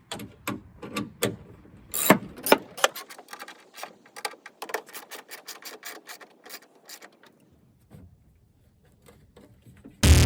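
Ratchet wrench with a 10mm socket clicking in quick, uneven runs as the tail light bolts are run back in, for about seven seconds. Music with a beat starts right at the end.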